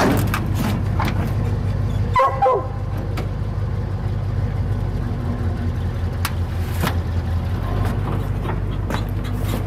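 Steady low rumble of a running truck, with scattered small clicks and knocks. A dog gives a short bark or yelp about two seconds in.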